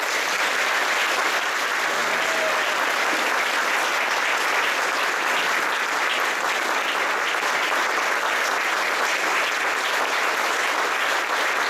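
Audience applauding steadily, a dense sustained clapping in a large hall.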